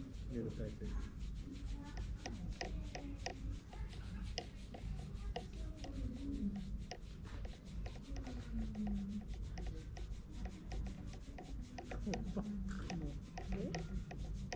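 Fingers scratching a calico cat's chin fur close to the microphone: fast, rhythmic rubbing strokes at about five a second.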